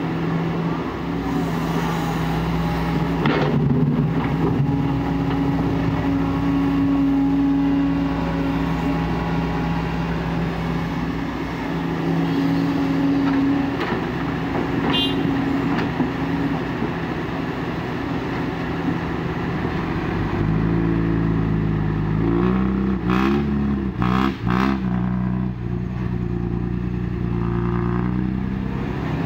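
Diesel engine of a Kobelco SK140 excavator running steadily under working load, its pitch shifting up and down in the last third as the load changes, with a few sharp metallic clanks.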